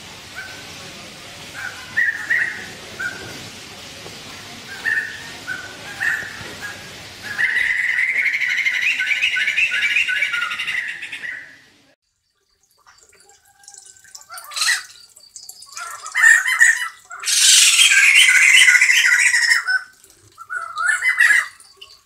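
Sumatran laughingthrushes calling: scattered short calls, then a loud, rapid chattering series. After a pause of a second or two comes more bursts of chattering, the longest of them falling in pitch.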